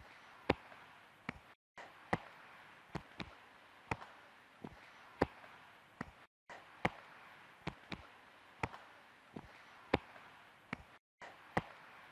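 Palms slapping shoulders and fists tapping lower backs as a group does a qigong self-massage exercise, sharp pats of uneven loudness at about one and a half to two a second over a faint hiss.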